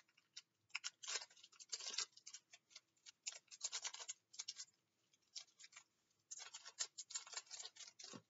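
Foil wrapper of a Match Attax trading-card pack crinkling and tearing as it is opened by hand, in several short spells of crackle.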